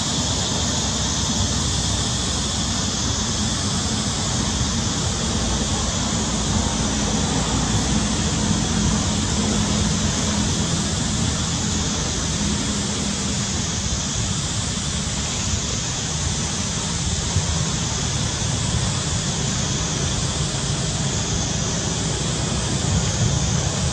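Steady outdoor background noise: a constant high hiss over a low rumble, with no distinct sounds standing out.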